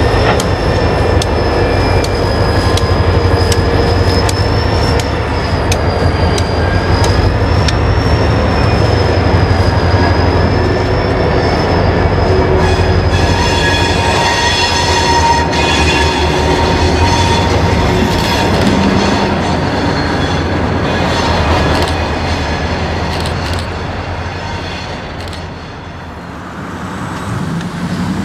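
Two diesel locomotives running, a steady low engine drone, as they roll along curved track with the steel wheel flanges squealing in high, wavering tones. The squeal turns into a ringing screech about halfway through, and the engine sound fades somewhat near the end.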